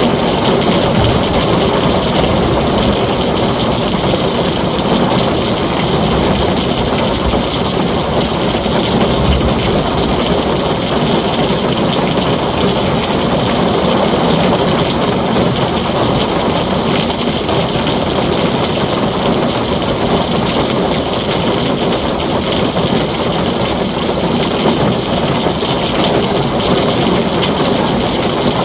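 Heavy rain falling steadily on a tin roof, a dense, even hiss and patter.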